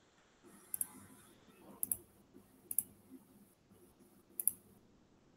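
Faint computer mouse clicks, a handful of sharp single and double clicks about a second apart.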